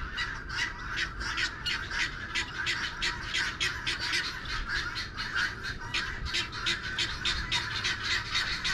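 Guinea fowl chattering: a rapid, unbroken run of short harsh calls, about five a second.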